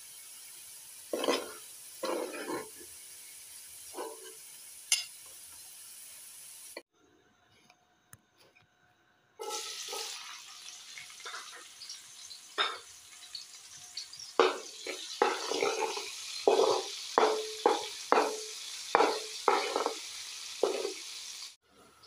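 Chopped red onion sizzling in oil in a steel pan, a steady frying hiss. It is broken by a brief drop-out about seven seconds in, then in the second half by a run of short stirring scrapes, about two a second.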